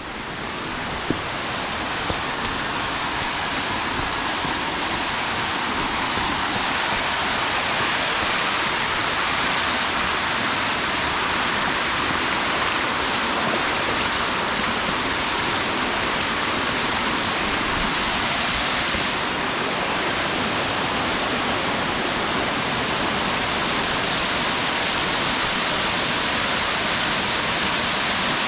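Waterfall rushing, a steady dense roar of falling water that grows louder over the first several seconds and then holds.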